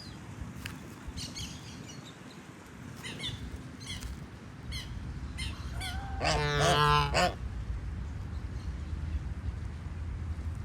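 Goose calling: a few short, high chirping calls, then about six seconds in a loud, harsh call lasting about a second, over a low background rumble.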